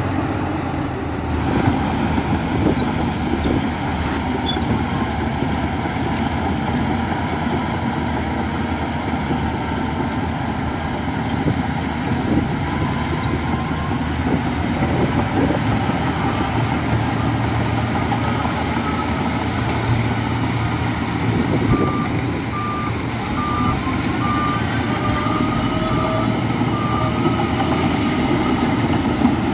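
Heavy diesel machinery running steadily at a garbage dump, a bulldozer and garbage trucks working together. About two-thirds of the way in, a reversing alarm beeps a little faster than once a second for several seconds.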